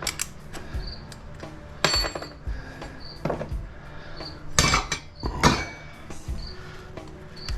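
Pieces of scrap copper and brass knocking and clinking together as they are handled. One ringing clank comes about two seconds in, and two louder knocks come near the middle.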